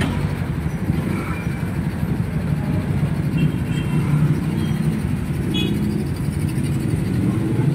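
Steady low rumble of road traffic and a running vehicle engine, with a couple of faint short high chirps about three and a half and five and a half seconds in.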